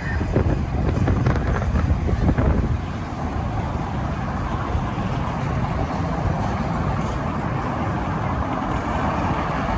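Vehicle driving, a steady engine and road rumble, with a few knocks in the first three seconds.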